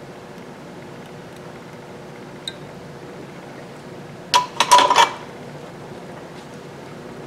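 Brief clatter of small metal tools on a workbench: a cluster of sharp, ringing clicks a little past four seconds in, with one faint tick before it. A steady fan hum runs underneath.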